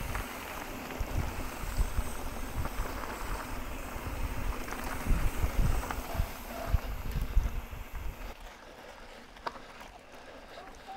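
Wind buffeting the camera's microphone while a mountain bike rolls down a dirt singletrack, with frequent low thumps from the tyres and suspension over bumps. It quietens about eight seconds in.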